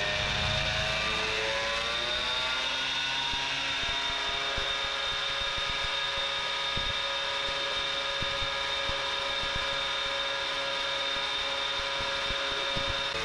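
Delta 12-inch portable thickness planer running, its motor whine sliding up in pitch over the first couple of seconds and then holding steady, with scattered low knocks.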